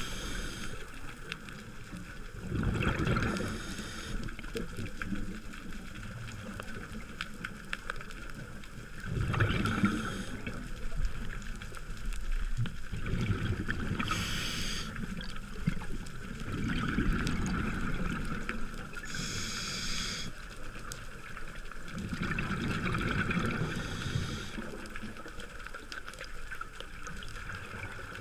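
Scuba diver breathing through a regulator underwater: a short hiss on each inhale, then a longer low bubbling rush of exhaled air, repeating about every five seconds.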